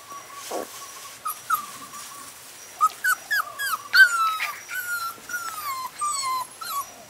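A dog whining: one long, steady high whine for about two and a half seconds, then a run of short whimpers that rise and fall in pitch.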